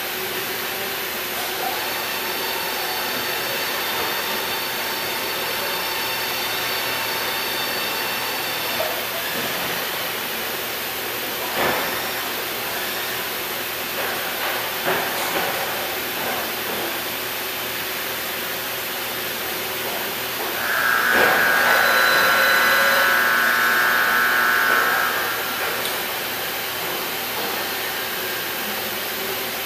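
Milltronics HMC70 CNC horizontal boring mill running under power with a steady mechanical hiss and hum. There are a few light clicks, and about two-thirds of the way in a louder high whine rises for about four seconds.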